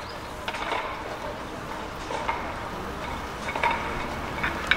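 Outdoor stadium ambience: faint distant voices and scattered light clicks and knocks over a low steady background.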